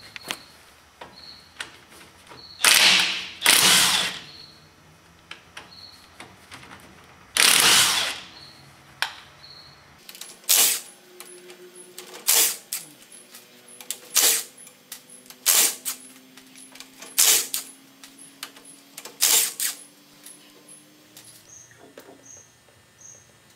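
Cordless impact driver running in short rattling bursts as it spins out the axle flange bolts on a Silverado 2500HD full-floating rear hub. There are about nine bursts, each under a second and a second or more apart.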